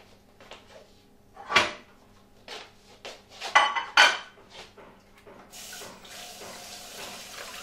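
A handful of sharp knocks and clatters, then a kitchen tap running steadily into the sink from about five and a half seconds in.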